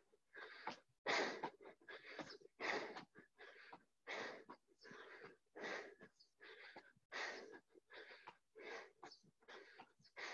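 A person breathing hard from jumping exercise (T-jacks): faint, short, rhythmic breaths at about two a second.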